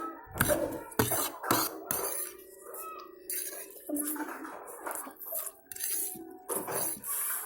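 Eating utensils clinking and scraping against a dish of pancit canton noodles: a string of short, sharp clinks, irregularly spaced.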